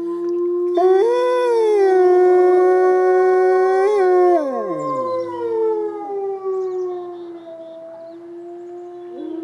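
Two wolves howling together. One long, steady low howl is held throughout, while a second, higher howl joins about a second in, holds, then slides down in pitch at around four to five seconds.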